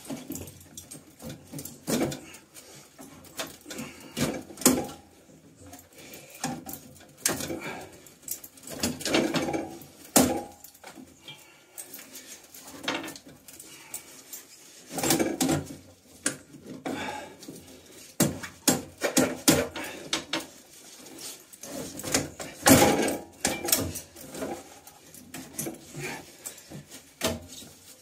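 Irregular metallic knocks, clunks and scrapes as the stainless-steel heat exchanger (heat cell) of a Worcester Bosch combi boiler is twisted and worked loose from its mountings and lifted out of the casing by hand.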